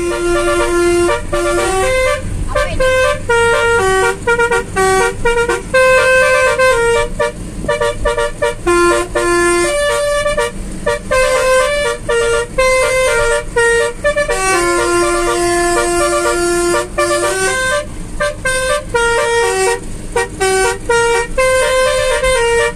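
Basuri musical air horn fitted to a car, played note by note from a keypad to sound a continuous tune of quick notes with a few long held ones, heard from inside the cabin over a steady low engine hum.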